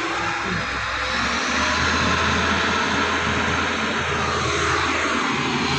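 Diesel engine of a heavy construction machine running steadily, a constant drone heard from inside its cab.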